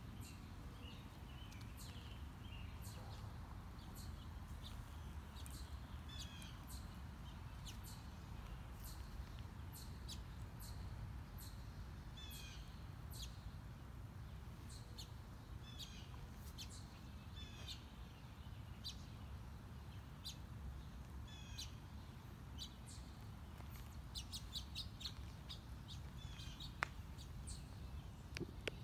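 Small birds chirping again and again in short, high, quickly falling notes, thicker in a quick run a little before the end, over a steady low rumble. A single sharp click sounds near the end.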